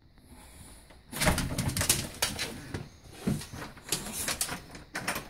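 English bulldog sniffing and grunting with its nose pressed to the door crack: a run of short breathy snuffles and low grunts, starting about a second in.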